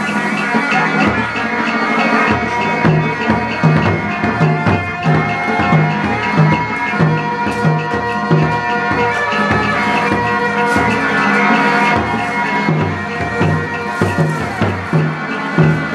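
Hát bội ensemble music: a reedy wind instrument plays a held, wavering melody over a drum beating steadily about twice a second.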